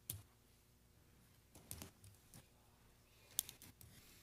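Near silence in a quiet room, broken by a few faint, scattered clicks and knocks.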